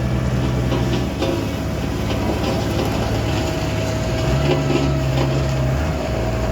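A heavy vehicle's engine running, its pitch shifting a couple of times with changes in engine speed.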